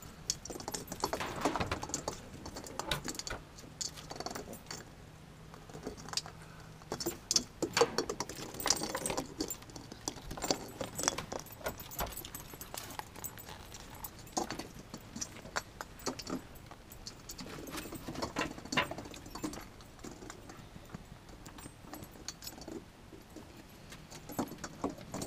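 Yorkshire terriers playing on a wooden deck: claws clicking on the boards and plastic Christmas ornaments rattling and clattering as the dogs carry and knock them about. It comes as irregular clicks and rattles, with several busier spells.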